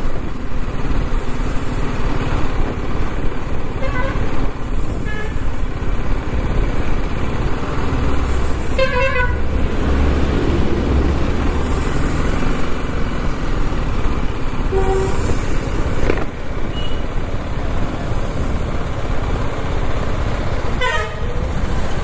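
Ride-along sound of a motorcycle moving slowly through town traffic: steady engine and wind noise on the microphone, with vehicle horns honking several times, the loudest about nine seconds in and another near the end.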